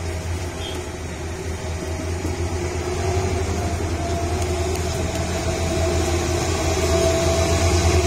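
Diesel engine of a loaded Mitsubishi Fuso cargo truck running with a steady low throb, growing louder as the truck approaches.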